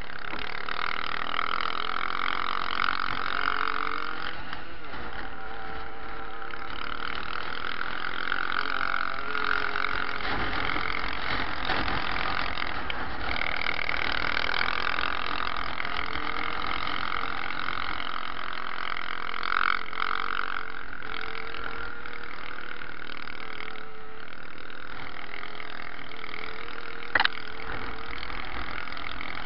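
Dirt bike engine running while riding over a rough field track, its pitch rising and falling with the throttle, with steady wind noise on the bike-mounted microphone. A single sharp knock comes near the end.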